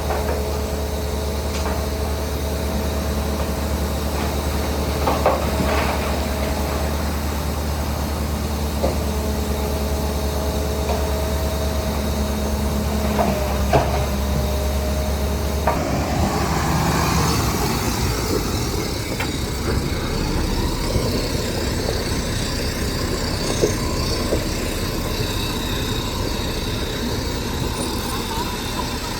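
Heavy diesel machinery running at a steady drone, with a faint held whine and a few sharp metallic knocks in the first half. About halfway through the sound changes abruptly to a noisier engine drone.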